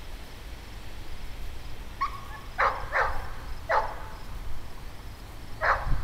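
A dog barking four times: two quick barks about two and a half seconds in, another a moment later, and one near the end, over a low rumble of wind on the microphone.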